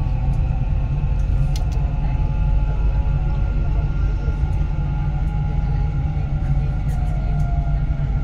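Dubai Metro train running with a steady low rumble, heard from inside the lead carriage as it pulls into a station; faint whining tones slide slowly down in pitch, with a few light clicks.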